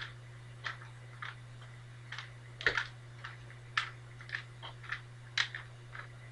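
Plastic Rubik's Cube layers being twisted by hand: a dozen or so short, irregular clicks and clacks, with a steady low hum underneath.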